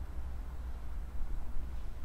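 Low, uneven rumble of wind buffeting the microphone, with a faint steady outdoor hiss and no distinct sounds.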